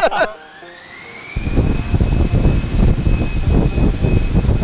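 Large electric ducted fan on a thrust test stand spinning up. A whine rises in pitch and then holds steady, and about a second and a half in a loud low rush of air joins it.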